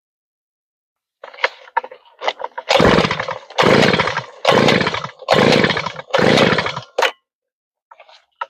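Small gas engine of a new earth auger pull-started by its recoil cord five times in quick succession, each pull a short burst of cranking that dies away without catching. A few light clicks come before the pulls and a sharp click right after them.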